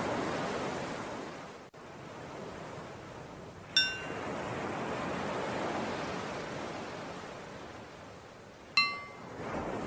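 Recorded ocean waves washing in and out, with a bell struck twice about five seconds apart, each strike ringing briefly over the surf. The bell is the cue to switch between breathing in and breathing out.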